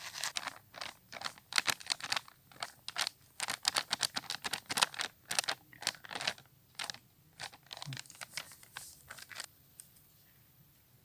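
Plastic packet of cornflour crinkling and rustling in quick irregular bursts as it is handled and poured, stopping shortly before the end.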